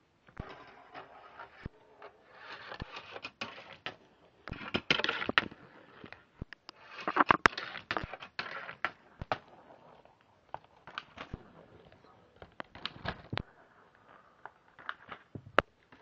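A marble rolling down a homemade plastic marble run, clattering along the track in stretches of rolling noise mixed with many sharp clicks, which grow sparser later on.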